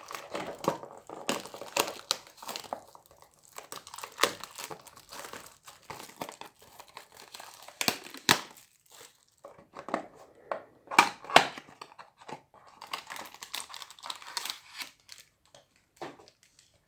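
Plastic wrapping on a trading-card box being torn open and crinkled by hand: irregular crackling and tearing, busiest about two-thirds of the way through and dying away near the end.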